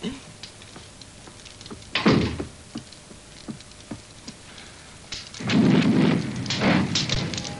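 Cartoon sound effect of a wood fire crackling in a fireplace, with scattered small pops. It swells into a louder rush of crackling near the end. A single louder knock or thump comes about two seconds in.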